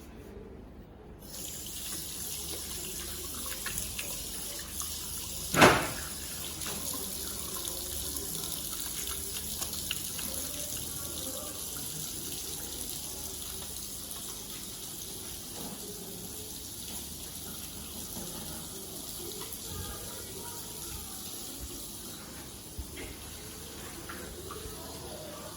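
Tap water running steadily into a sink for handwashing, turned on about a second and a half in. A single sharp knock stands out a few seconds after the water starts.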